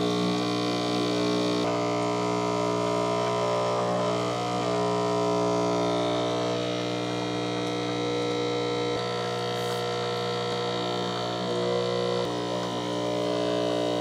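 Chefman RJ54-V2 espresso machine's pump running with a steady, a little loud hum as it primes, pushing water through the portafilter. Its tone shifts slightly a few times, and it cuts off at the very end as the priming cycle finishes.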